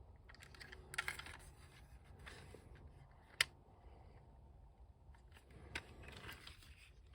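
Faint handling noise of small plastic toy parts, soft rustles and light clicks, with one sharper click about three and a half seconds in.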